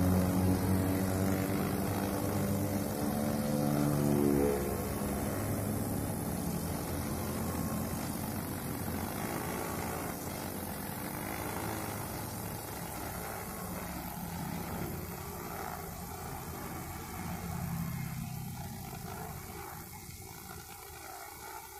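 Backpack brush cutter with a Honda GX four-stroke engine running at high revs while its nylon line cuts grass. It is loudest for the first four or five seconds, then runs lower and less even for the rest.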